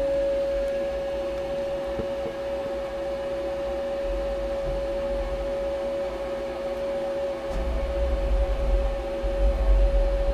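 Fadal CNC vertical machining center humming with a steady, constant whine while the Z axis is jogged and the spindle is brought down. A low rumble comes and goes in the second half.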